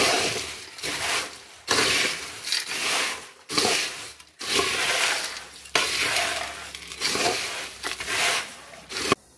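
Dry fried snack mixture of sev, boondi, peanuts, fried gram and cashews being tossed by hand in a large metal pot: a crisp crunching rustle of hard pieces sliding over each other and against the pot's side, in repeated sweeps about one a second. The snack is being mixed to coat it evenly with chilli powder, asafoetida and salt. The sound stops suddenly near the end.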